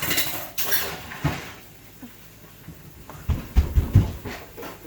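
Rustling and clattering handling noises, with a cluster of low knocks about three and a half seconds in.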